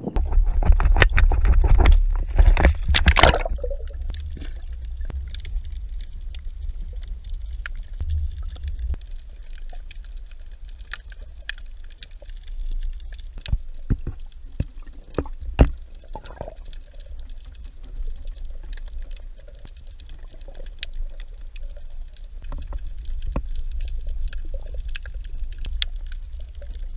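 Splashing and gurgling for about the first three seconds as the camera goes under the sea surface, then a steady deep underwater rumble with scattered sharp clicks and taps.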